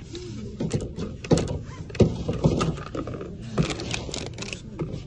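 Packaged candy and small toys being handled and set into a basket: about five sharp knocks and thunks, spread unevenly over a few seconds.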